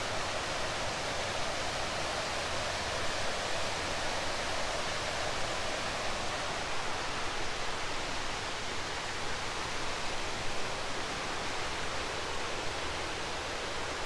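River water rushing steadily over rocky riffles, a constant even rush of white water.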